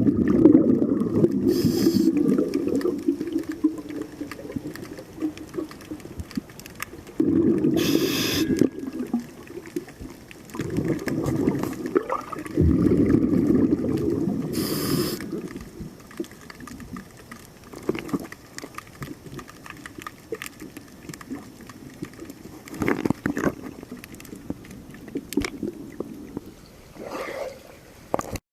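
Scuba diver breathing through a regulator underwater: bubbly, rumbling exhalations every few seconds, with three short hisses of inhalation.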